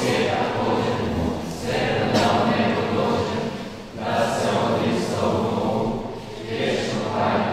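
A choir singing, in phrases of about two seconds with short dips in loudness between them.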